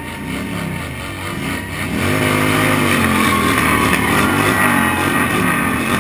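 Cruiser motorcycle engines running at walking pace, revving up and down. The engine note swells and falls several times and gets louder about two seconds in.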